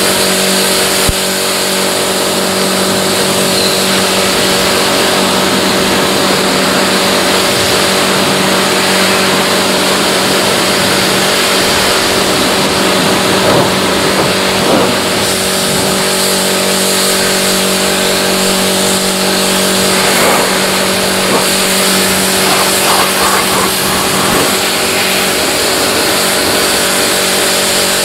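A steady motor hum with a constant, even hiss over it, unchanging throughout, with a few small irregular crackles in the middle.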